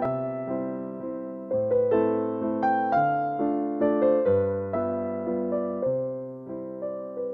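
Background piano music: calm keyboard chords and a simple melody, each note struck and fading away.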